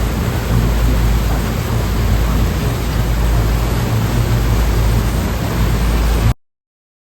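Sea waves and surf: a steady rushing noise with a deep rumble underneath, cutting off abruptly about six seconds in.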